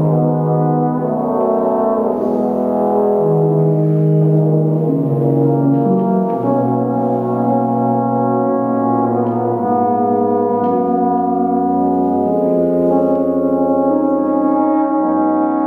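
Symphony orchestra playing a slow adagio: sustained, evenly loud chords that shift every second or two.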